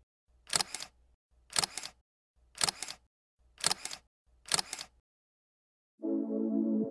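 Camera shutter sound effect, a quick double click repeated five times about once a second. About six seconds in, a short synthesizer chord starts and ends with a downward pitch slide.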